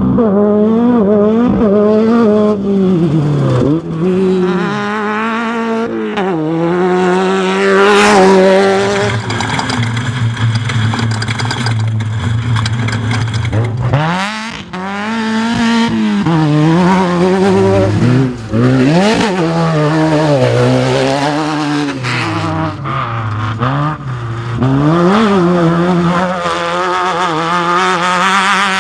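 Off-road race vehicle's engine running hard. Its pitch climbs and drops again and again as the throttle is worked, with a few sharp rises in revs.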